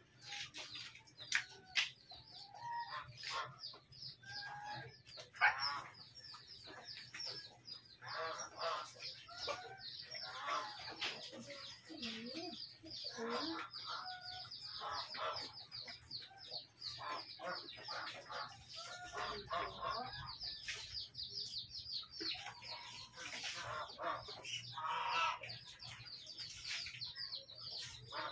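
Chicken clucking, over a dense stream of quick, high chirps. A few short knocks in the first six seconds.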